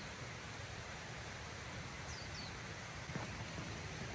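Steady outdoor background hiss, with two faint short high falling notes about two seconds in and a soft tap about three seconds in.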